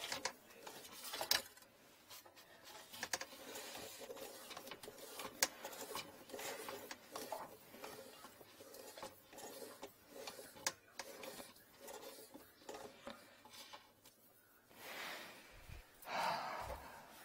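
Drain inspection camera's yellow push cable being worked by hand at its reel: faint rubbing and scraping with many scattered small clicks, and a louder rustle of handling near the end.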